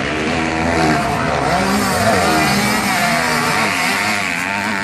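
Several motocross dirt bikes' engines revving as the bikes lap the track, their pitches rising and falling and overlapping as the riders accelerate and ease off.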